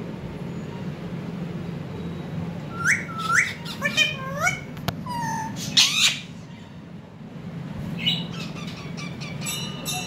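Rose-ringed parakeets (ringneck parrots) squawking: a quick series of short, shrill, swooping calls about three to six seconds in, with a few sharp clicks near the end.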